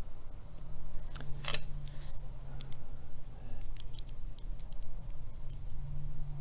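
Small metal lock parts and tools clicking and scraping as a padlock is worked apart by hand, with one sharp, ringing metallic clink about a second and a half in. A steady low hum runs underneath.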